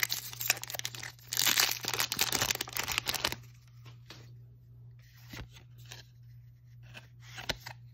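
Foil wrapper of a Magic: The Gathering booster pack torn open and crinkled for about three seconds, then a few faint clicks as the cards are handled.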